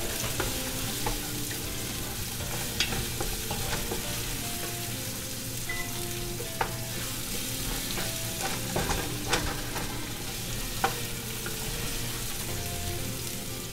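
Sliced onion and garlic sizzling in a pot as they are sautéed, stirred with a wooden spoon that scrapes and gives a few sharp clicks against the pot.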